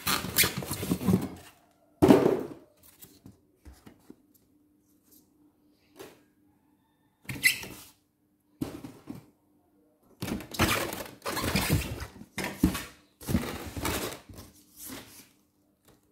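Cardboard box and styrofoam packing being handled: irregular bursts of rustling, scraping and knocks. The bursts pause for several seconds about two seconds in, then come thick and close together in the second half.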